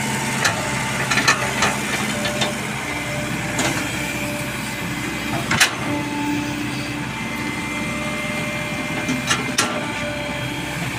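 Caterpillar E120B hydraulic excavator running steadily while its bucket digs into gravel and wet soil, with scattered sharp clicks and knocks of stones against the bucket, the loudest about five and a half seconds in.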